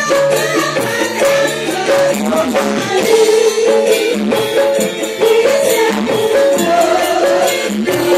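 Javanese gamelan ensemble playing with female sinden singers singing through microphones over a PA. Sustained metallophone tones carry the melody under a steady drum and percussion beat.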